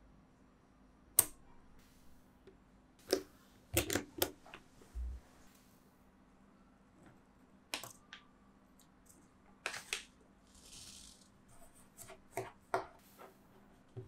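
Small neodymium magnetic balls clicking and clacking as magnet-ball pieces are handled, snapped together and set down on a hard tabletop: about a dozen irregular sharp clicks, some in quick clusters, with a dull thump about five seconds in. A short soft hiss past the middle comes from kinetic sand being pressed into place.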